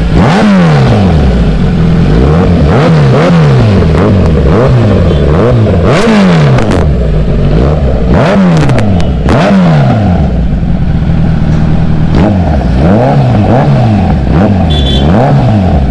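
Kawasaki Z900's inline-four engine, fitted with an aftermarket slip-on silencer, being revved in quick repeated throttle blips, about one a second, each rising and falling back. A few sharp cracks come through near the middle.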